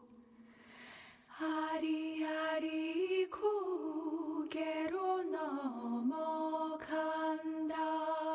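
Wordless solo singing, chant-like, in slow held notes with vibrato and a few gliding pitch changes; it comes in about a second and a half in after a near-quiet moment.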